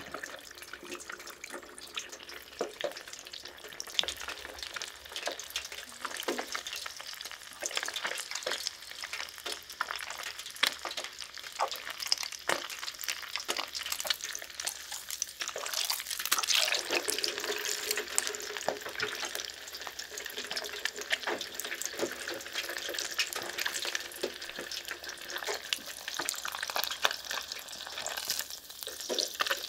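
Battered sweetfish (ayu) and drizzled batter frying in a tray of hot oil: a steady sizzle with many small crackles, louder around the middle.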